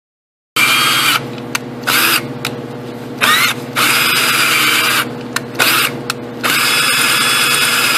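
Cordless drill with a small bit boring into a broken steel bolt, starting about half a second in. The motor runs steadily, and the trigger is pressed harder in repeated bursts of louder, higher whine, one rising in pitch as it speeds up.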